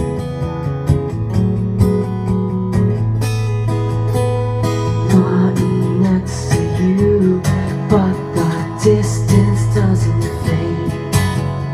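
Acoustic guitar strummed steadily, with a man singing over it from about five seconds in.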